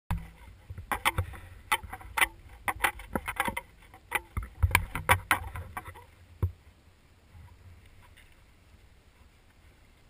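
Irregular knocks and clatter of a wooden plank footbridge being crossed, some fifteen sharp knocks that stop about two-thirds of the way through, leaving only a faint steady hiss.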